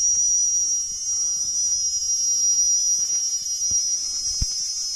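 Cicadas calling together in a loud, steady, high-pitched buzz that never breaks.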